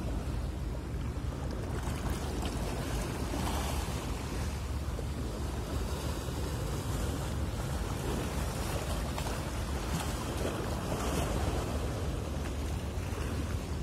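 Steady wind noise on the microphone over water washing, with a constant low rumble and no distinct events.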